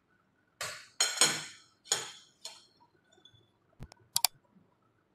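Several sharp metallic clinks with a ringing tail, the loudest about a second in, from metal utensils striking a foil-lined tray, then a few quick faint clicks near the end.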